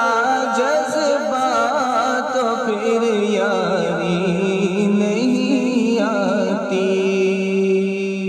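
Devotional nazam (naat) singing: a voice drawing out ornamented, wavering notes over a steady drone, settling on a long held note near the end that begins to fade.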